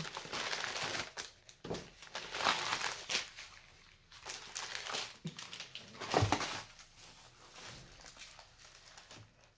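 Plastic packaging and gift wrap crinkling and rustling in irregular bursts as packages are unwrapped by hand, with a dull thump about six seconds in.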